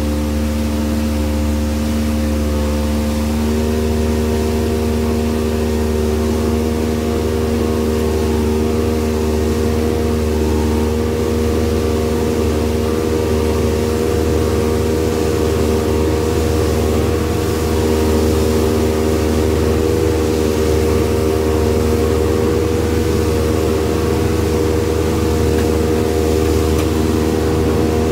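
Outboard motor of a small open fishing boat running steadily under way at speed, a little under three-quarter throttle. Its note rises slightly about three seconds in and then holds.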